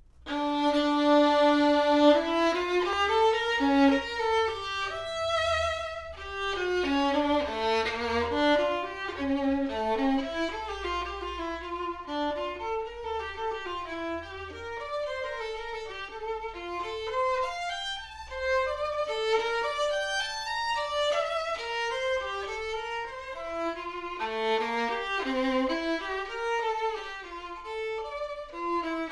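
Background music: a violin playing a quick, winding melody of many short notes, starting abruptly just after the beginning.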